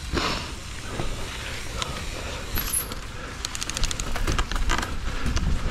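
Mountain bike riding a dirt trail: low wind rumble on the action-camera microphone and tyre noise. Rattling and clicking of the bike over rough ground grows busier in the second half.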